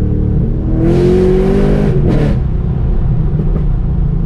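Holden Commodore's big-cam, forged LS3 V8 heard from inside the cabin, accelerating hard with its note rising for about two seconds, then dropping back to a steady lower drone.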